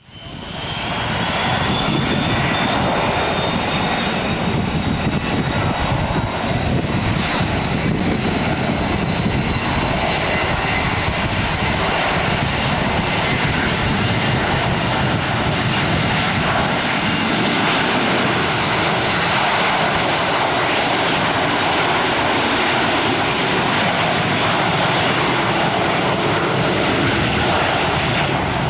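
Airliner engines running steadily: a high whine over a loud rushing noise.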